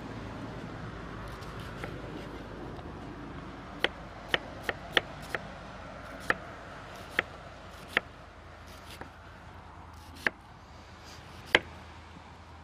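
Chef's knife chopping red cabbage on a cutting board: about ten sharp, irregular knocks of the blade hitting the board, a quick run of five around four seconds in, then one every second or so.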